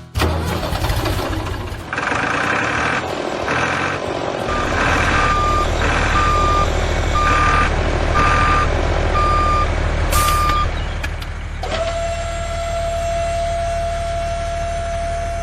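Vehicle reversing alarm beeping over and over, roughly once a second, over a steady low engine rumble. About twelve seconds in the beeping gives way to one steady held tone.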